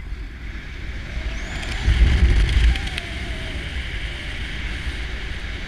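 Wind rushing and buffeting over a microphone in flight under a paraglider, with a stronger gust about two seconds in.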